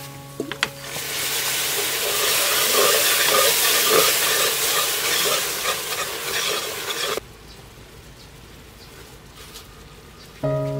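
Thick dark sauce sizzling in a hot pot as a metal spoon stirs and scrapes through it. The sizzle cuts off abruptly about seven seconds in, leaving a much quieter background.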